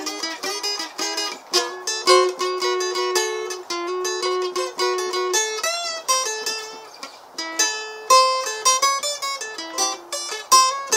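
Solo steel-string acoustic guitar playing an instrumental melody line: a quick run of single plucked notes with a few held notes, and one note bending in pitch about six seconds in.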